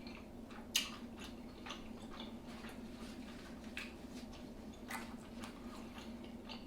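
Close-miked eating of seafood: scattered wet mouth clicks and smacks of chewing, the sharpest just under a second in, over a faint steady hum.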